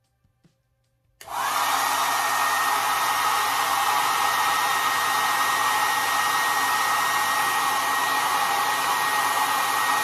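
Brightup hair dryer switched on about a second in, its motor spinning up in a moment, then blowing steadily on its medium setting: a loud, even rush of air with a thin steady high whine.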